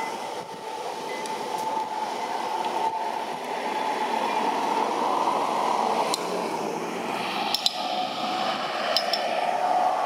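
Steady background hiss with a continuous mid-pitched hum, and a few short clicks in the second half.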